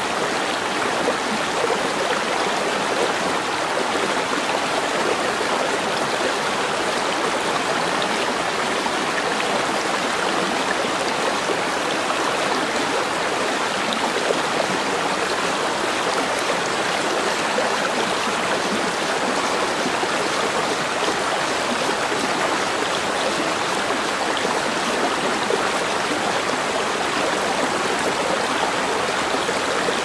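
Small rocky forest stream running steadily, its water splashing over stones and down a low cascade.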